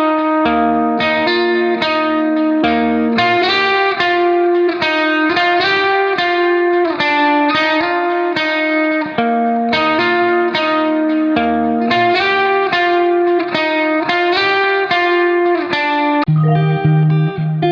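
Background music: a plucked guitar piece with notes picked in a steady run and a bass line.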